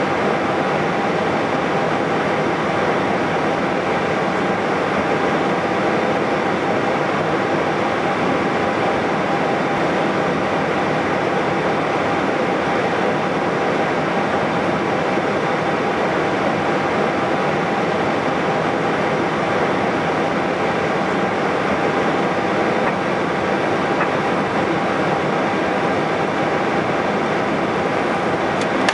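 Airbus A320-214 cockpit noise while taxiing and lining up: a steady hiss and hum of engines at idle and cockpit ventilation, with no change in level.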